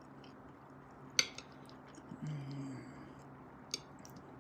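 Close-up eating sounds: quiet open-mouthed chewing of salmon and macaroni and cheese, with a sharp click about a second in and a fainter one near the end, and a short low hum of voice around halfway.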